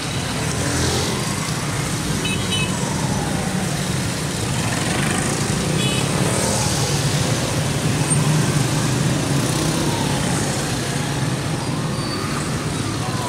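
Heavy street traffic of motorcycles, auto-rickshaws and cars passing close by one after another, their engines making a steady hum. Short high beeps come about two and a half and six seconds in.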